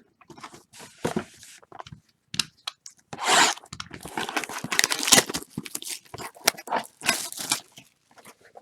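A foil trading card pack wrapper being torn open and crinkled by hand, in irregular rustling bursts, with one loud tear about three seconds in.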